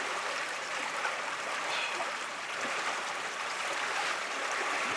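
Steady rush of water streaming along the hull of a sailboat under sail.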